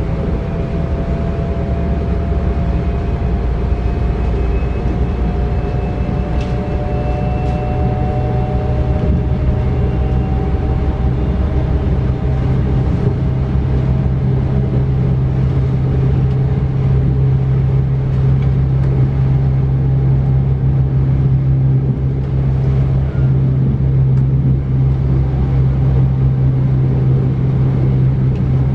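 Running noise inside a DB Class 425 electric multiple unit: a steady rumble of the wheels on the rails with a thin whine from the traction equipment that slowly rises in pitch over the first ten seconds. A steady low hum sets in a few seconds in and the noise grows a little louder.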